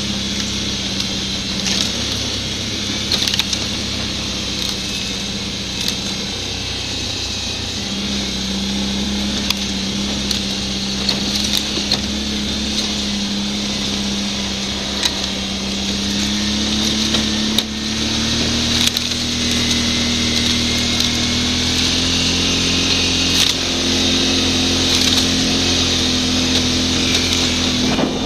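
Quad (ATV) engine running steadily while riding a snowy trail, its pitch creeping up slowly in the second half, with frequent short clicks and knocks over it.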